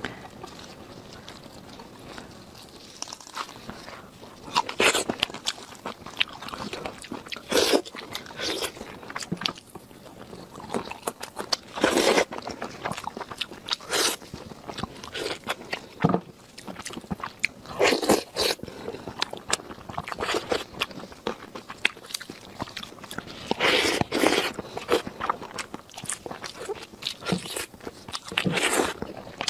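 Close-up eating sounds of someone biting and chewing red-braised lamb ribs: irregular wet crunches and mouth clicks, with louder bites every few seconds.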